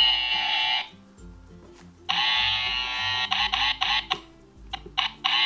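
Play-Doh toy electric hair trimmer buzzing as it shaves modelling-clay hair, switching on and off in bursts: it stops about a second in, buzzes again for about two seconds with stutters, gives a few short blips, and starts again near the end.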